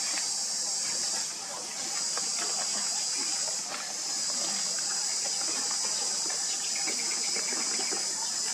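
A steady, high-pitched insect chorus that dips briefly twice, after about a second and again about halfway through.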